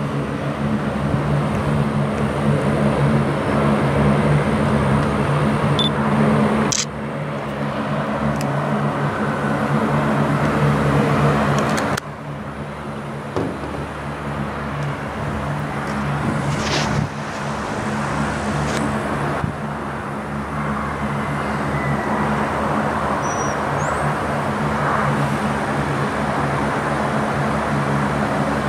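Steady low engine drone holding a few fixed pitches, under a noisy hiss, with a few short clicks; the level drops suddenly about seven and twelve seconds in.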